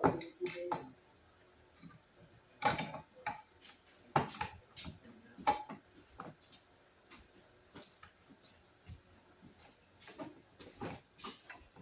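Irregular clicks, taps and small knocks from handling an electrical box and its screws while fitting it to the wall.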